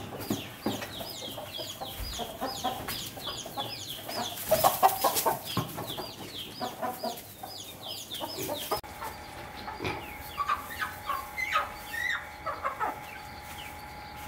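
Chickens clucking, with many quick high calls overlapping one another. About four to five seconds in there is a louder burst of rustling noise, and for the last few seconds the calls thin out over a faint steady tone.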